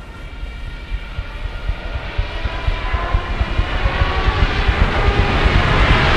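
Film sound of a dive bomber approaching overhead: a deep rumble with a slowly rising whine, growing steadily louder, under several steady held tones.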